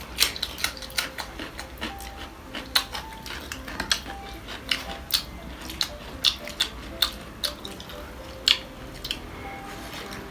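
Close-up eating sounds: irregular sharp clicks and smacks of chewing, a few each second.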